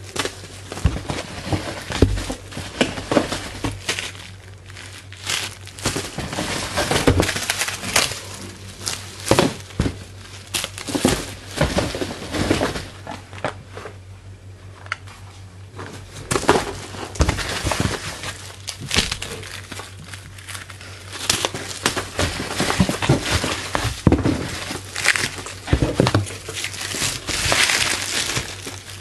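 Packaging being unpacked by hand: irregular crinkling and crumpling with scattered knocks and rustles, over a steady low hum.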